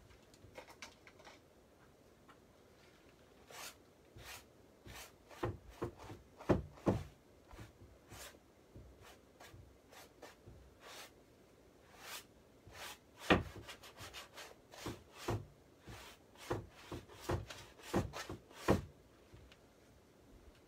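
Paintbrush scrubbing acrylic paint onto a large stretched canvas in quick, irregular strokes, in short flurries with pauses between.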